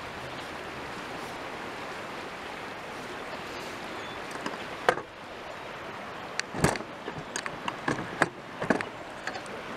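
Steady rushing background noise, then from about five seconds in a cluster of sharp knocks and clicks, the loudest a deep thump, as the camera is handled and moved.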